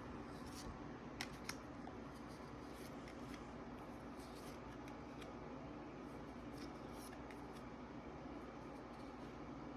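Faint light clicks and rustles of trading cards being handled and flipped through by hand, over a steady low room hum. There are two slightly sharper clicks a little over a second in.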